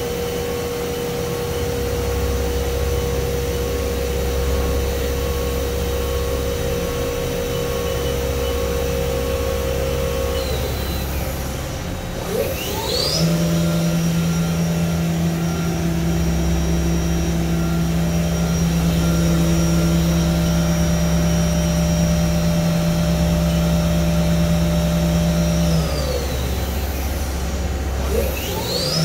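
Haas VF-3SS vertical machining center's spindle running with a steady whine. It winds down about 11 seconds in and speeds back up to a new steady pitch a second or so later, then winds down and back up again near the end.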